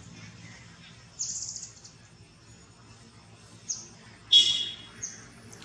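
Several short, high-pitched chirping animal calls. A buzzy one lasts about half a second just over a second in, and a louder, fuller one comes about four seconds in, with quick single chirps around it.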